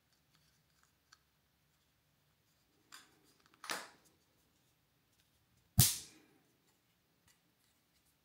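Plastic casing of a Xiaomi Flower Care plant sensor being pressed back together by hand: faint small clicks of handling, a snap a little before four seconds in, then a loud sharp click about six seconds in as the shell snaps shut.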